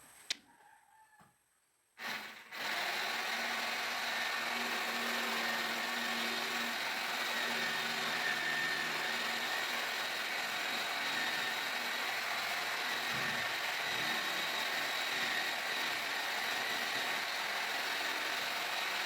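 Handheld electric power tool switched on about two seconds in and running steadily at full speed.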